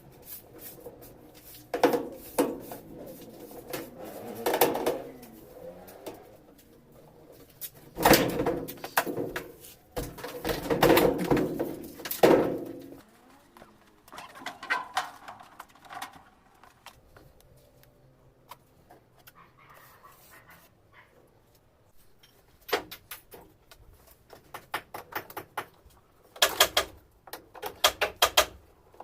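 Washing machine being taken apart by hand: irregular knocks, scrapes and clicks of plastic panels and parts being handled. The loudest scrapes come about a third of the way in, and a rapid run of clicks comes near the end.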